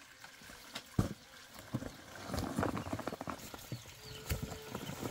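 A single thump about a second in, then dense rustling, scraping and knocking of a cardboard box being handled and opened, with ducklings scrabbling inside and a faint peep near the end.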